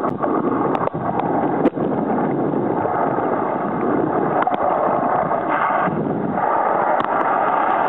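Muffled, steady rushing of water heard through an underwater camera as the swimmer moves, with a few sharp clicks scattered through it.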